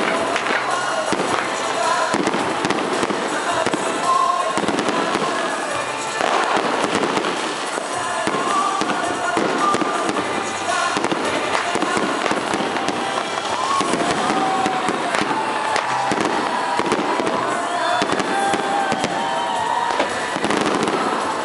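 Fireworks display: a dense, continuous crackling and banging of bursting aerial shells, with music playing beneath it.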